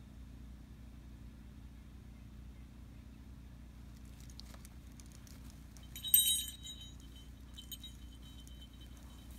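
Metal tags on a dog's collar jingling as the dog moves and sniffs, with one sharp, ringing jangle about six seconds in and a few lighter clinks after it.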